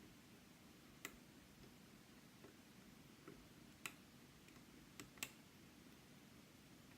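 Lock pick and tension tool working the pins of a Yale Superior lock: a few faint, sharp metallic clicks, the clearest about a second in, near four seconds, and two close together near five seconds, over near silence.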